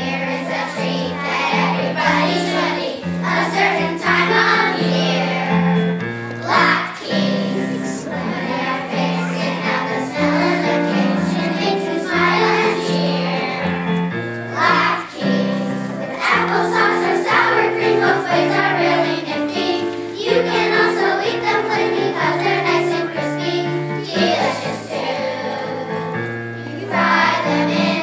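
Children's choir singing a song in unison over keyboard accompaniment that holds steady bass notes.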